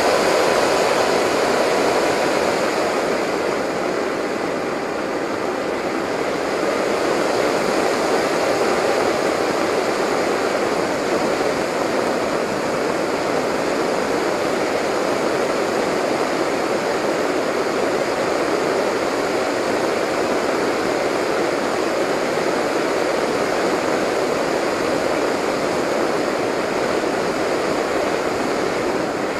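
Steady rush of airflow over the onboard camera of a Delta Speed XS RC delta-wing model in flight, with a faint thin whine that fades out in the first couple of seconds.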